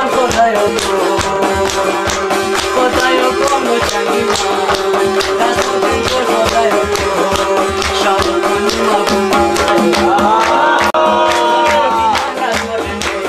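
Live folk song: a man singing over a plucked rabab, a keyboard and quick, steady hand percussion. A long held note sounds near the end.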